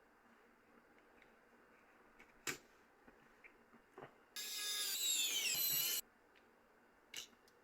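A few sharp small clicks from phone parts being handled. Past the middle comes a loud hiss of about a second and a half, with a whistle that falls in pitch, starting and stopping abruptly.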